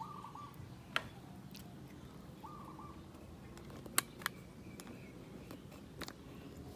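Cats eating their dinner: a few sharp crunching clicks of chewing, with two short chirps, one at the start and one about two and a half seconds in.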